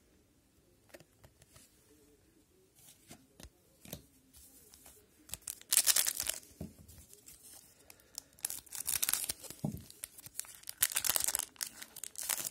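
A 2021-22 Upper Deck hockey card pack wrapper being torn open and crinkled, in three loud noisy bursts over the second half, after a few faint clicks of cards being handled.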